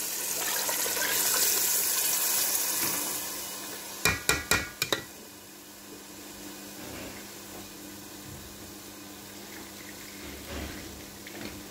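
Chicken stock pouring from a plastic container into a pot of chickpeas and masala, a splashing hiss for about three to four seconds that fades. About four seconds in comes a quick run of sharp knocks, then a low steady background hiss.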